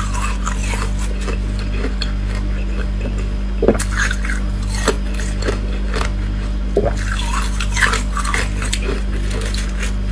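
Thin shards of ice being picked and snapped off a hollow ice shell by fingers, giving small scattered cracks and clinks, a few sharper snaps among them. A steady low hum runs underneath.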